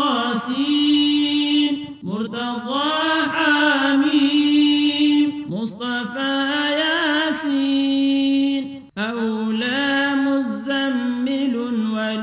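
A voice chanting names of the Prophet Muhammad in Arabic, unaccompanied by any clear instrument. It sings in long melodic phrases of two to three seconds, each ending on a held note, with short breaths between them.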